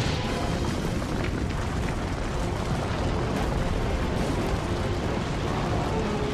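Loud, continuous rumbling noise, heaviest in the deep low end, holding steady throughout.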